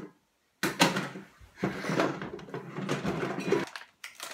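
A clear plastic packet crinkling and rustling as it is handled with rubber-gloved hands while someone tries to tear it open. It starts about half a second in and stops shortly before the end.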